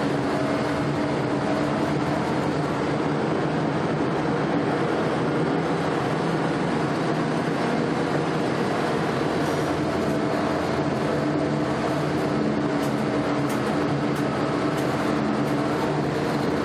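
Army DUKW amphibious vehicle's engine running steadily under way, heard from aboard, with a constant low drone and no change in pitch.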